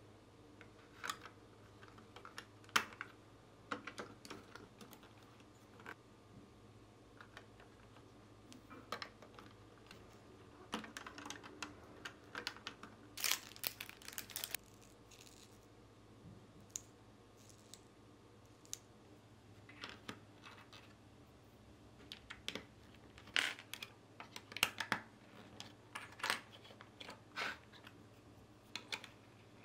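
Small plastic building bricks being handled and pressed together: scattered sharp clicks and taps, with a denser run of clicks about halfway through.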